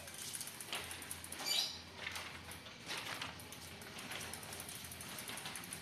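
Light clicks, rattles and scuffs from children's bicycles being wheeled and ridden over tiles, with a sharper, squeak-like sound about a second and a half in.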